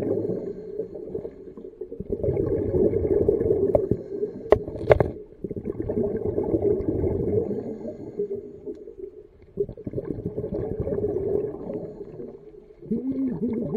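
Muffled underwater rushing and gurgling picked up by a submerged camera, swelling and fading in waves, with a couple of sharp clicks about a third of the way in.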